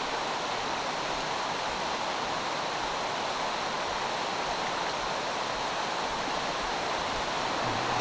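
Rocky mountain stream rushing over stones, a steady even rush of water.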